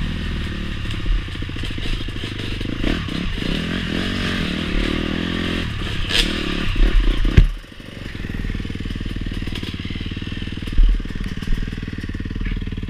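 Honda CRF four-stroke dirt bike engine running over a rough trail, its pitch rising and falling with the throttle, with clatter and knocks from the bike over bumps. A hard thump about seven seconds in is the loudest sound. The engine then settles to a steadier, lower note as the bike slows.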